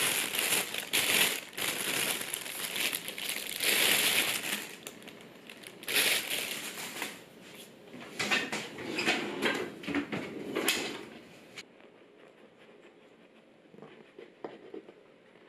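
Thin plastic bread bag crinkling loudly as it is opened and handled, in irregular rustling bursts. The crinkling stops abruptly about eleven and a half seconds in, leaving only faint soft handling sounds.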